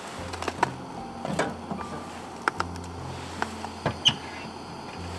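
Wood fire burning, with a handful of sharp crackles and pops scattered through it, one with a brief high squeak a little after four seconds.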